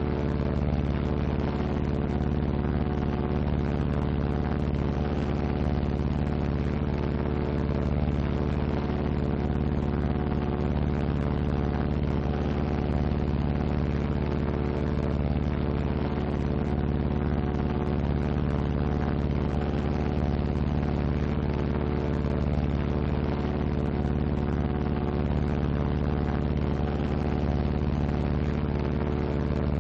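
Steady drone of a Martin B-26 Marauder's Pratt & Whitney R-2800 radial engine in flight, unchanging throughout. The aircraft is flying on one engine, the other propeller feathered.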